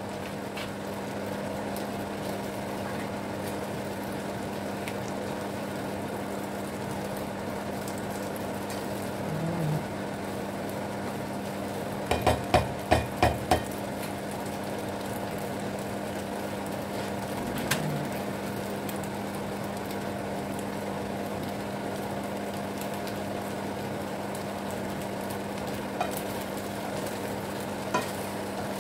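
Flat rice noodles frying in a nonstick wok over a steady hum. A little before halfway comes a quick run of about five sharp knocks, and near the end a couple of light clicks.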